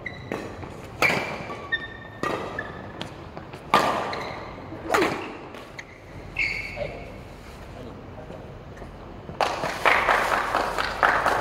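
Badminton rally: rackets striking a shuttlecock in a run of sharp hits about one to one and a half seconds apart, with short high squeaks of shoes on the court floor in between. A denser stretch of hits and noise comes near the end.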